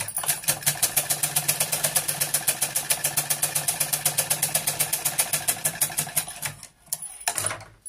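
Usha sewing machine stitching at speed: a rapid, even clatter of needle strokes over a steady hum, stopping about six and a half seconds in. The owner says the machine has become too noisy.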